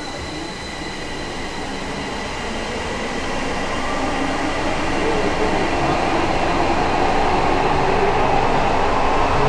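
Tokyo Metro Tozai Line subway train running along the underground platform, its wheel and track noise growing steadily louder.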